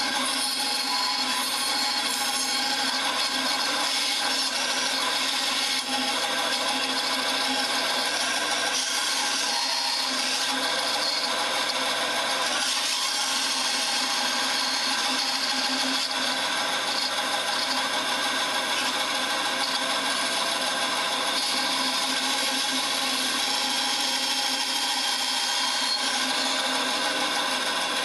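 Bandsaw running and cutting a slot through a plywood blank, a steady, unbroken sawing sound.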